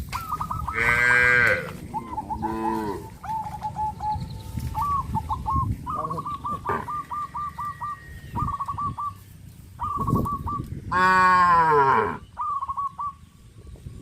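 Cattle mooing: three moos, a loud one about a second in, a shorter one just after, and a long loud moo near the end. Between them, birds call in strings of short, quickly repeated notes.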